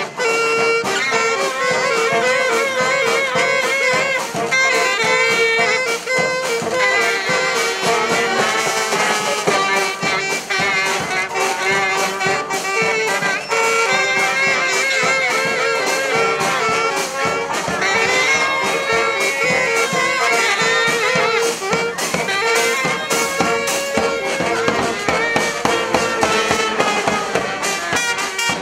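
A brass street band playing a lively tune, horns such as trumpets, trombones and saxophones carrying sustained melody notes over steady drum strikes.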